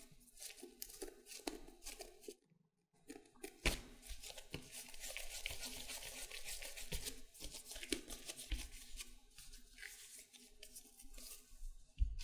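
Hands working a ball of bread dough, tucking it under and then rolling it round in a cupped palm on a silicone baking mat. Soft rubbing and squishing with light ticks and a few dull thuds, breaking off briefly about two and a half seconds in, then steadier rubbing during the rolling.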